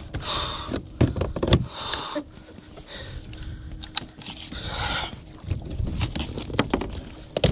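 Irregular clicks, knocks and rattles of a fishing rod and reel being handled in a plastic kayak, over wind and water noise.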